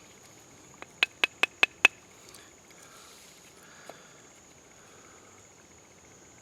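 A quick run of five sharp clicks, about a fifth of a second apart, comes about a second in, with a fainter single click a few seconds later. Under them runs a steady, high insect trill, such as crickets.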